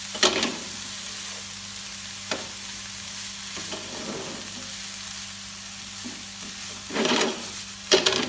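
Spatula stirring and scraping minced chicken filling around a nonstick frying pan, over a steady light sizzle from the still-hot pan just after the flame is turned off. Louder scrapes come just after the start, about two seconds in, and twice near the end.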